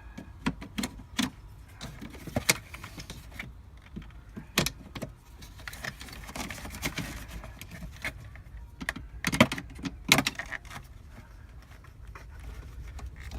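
Scattered clicks and knocks of plastic parts being handled and fitted as a car's wiring harness is worked back into place, with a cluster of louder knocks about nine to ten seconds in.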